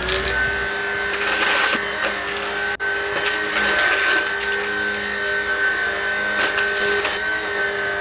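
Shark Stratos cordless stick vacuum running steadily with a high motor whine as it sucks up small Lego bricks, the pieces rattling and clicking through the floor head at times.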